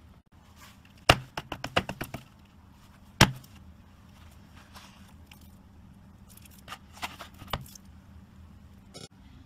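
Hands pressing and squeezing slime, making sharp clicking pops as air is squeezed out. The pops come in a quick cluster about a second in, one loud pop about three seconds in, and a few more around seven seconds in.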